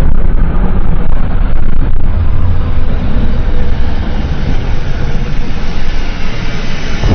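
Custom-made giant-monster sound effect: a loud, dense rumbling noise without a clear pitch, easing off slightly in the middle.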